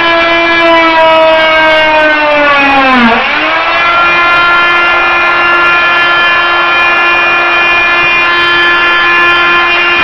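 Hyper Tough corded oscillating multi-tool running at maximum speed with a scraper blade, scraping linoleum off a wood subfloor: a loud, steady whine whose pitch sags briefly about three seconds in, then comes back up.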